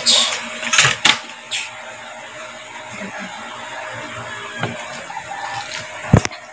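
Handling noise: a few short rustling scrapes in the first couple of seconds and a sharp knock near the end, over a steady background hiss.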